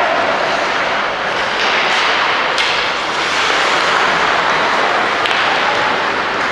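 Ice hockey play on a rink: a steady loud hiss of skates on the ice and arena noise, with sharp knocks about two seconds in, again half a second later, and once more after five seconds.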